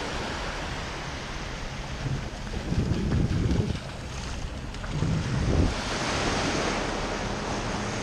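Small surf waves breaking and washing up the sand at the shoreline, a steady rush of water. Wind buffets the microphone in two low rumbling gusts, about three seconds in and again about five seconds in.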